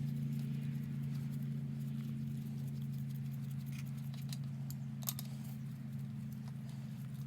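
Light, scattered clinks and scrapes of hand tools on engine parts during cylinder head removal, over a steady low hum. The sharpest clink comes about five seconds in.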